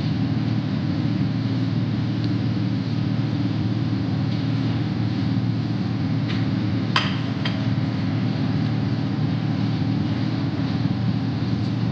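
Steady low background hum, with a few short sharp clicks about six to seven and a half seconds in.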